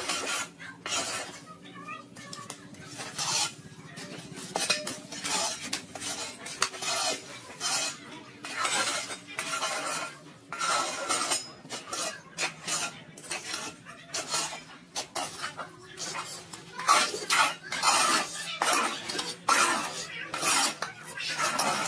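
Irregular scraping and clattering, one stroke after another with no steady rhythm, over a faint steady low hum.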